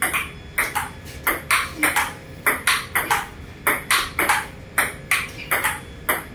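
Table tennis rally: a celluloid ball struck back and forth by rubber-faced paddles and bouncing on the table, a quick run of sharp ball clicks, about three a second, often in close pairs of hit and bounce.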